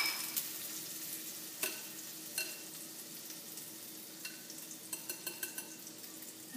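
Butter sizzling as it melts in a hot cast iron skillet, a steady faint hiss with a few light clicks and small ticks.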